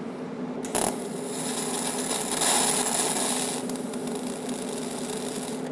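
TIG welding arc on reverse polarity (DCEP) struck with a sharp crack about a second in, then hissing steadily for about three seconds before dropping to a softer hiss. The arc is melting the end of a pure tungsten electrode into a ball against a brass plate, over the steady hum of the welder.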